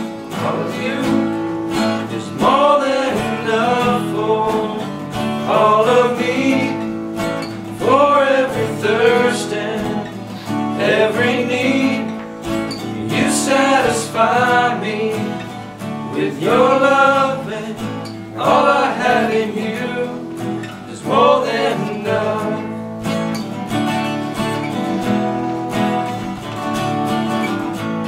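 Two acoustic guitars strumming chords under a man's singing voice in slow phrases every few seconds, a live worship song.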